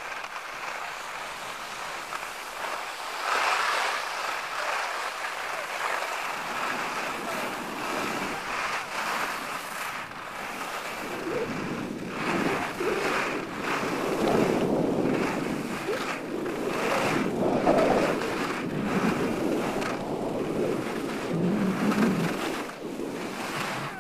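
Wind rushing over the microphone and skis sliding and scraping on packed snow during a downhill run, rising and falling in swells.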